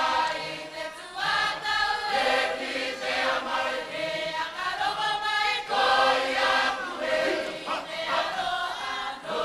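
Cook Islands congregation singing together as a mixed choir of men and women, the sung phrases swelling and easing every second or so.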